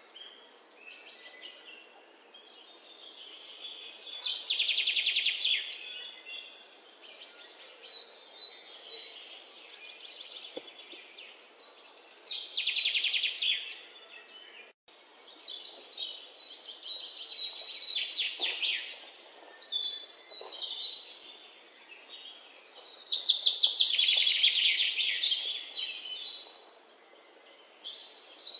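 Songbirds chirping and trilling in swells of rapid high notes that come and go every few seconds.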